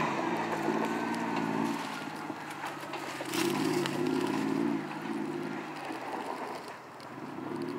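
Off-road buggy's engine revving and easing off as it is driven around on dirt, with two louder surges, the second about three seconds in, and its pitch rising and falling.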